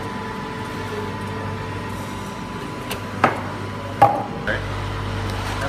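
Cups being set down and handled on a counter: two sharp knocks about three and four seconds in, with a few lighter clicks, over steady background noise.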